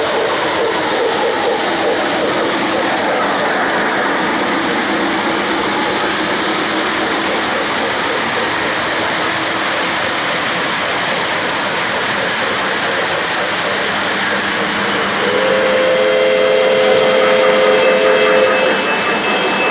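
O-gauge model freight train running on three-rail track with a steady rolling clatter of wheels. About fifteen seconds in, the steam locomotive's whistle sounds a chord for about three seconds.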